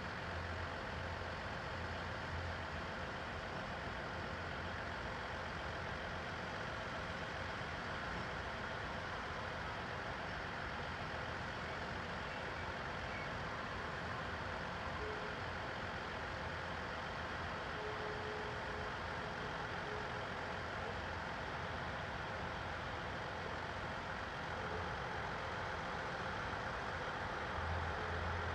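Steady mechanical hum and noise of railway station ambience, with no train passing.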